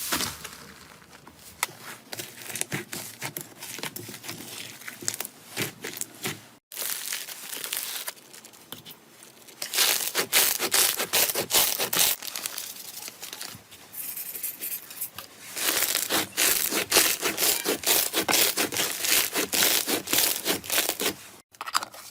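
Slime being squeezed, pressed and stretched by hand close to the microphone, giving a dense run of small wet pops and clicks. The sound cuts off abruptly twice, where one clip ends and the next begins.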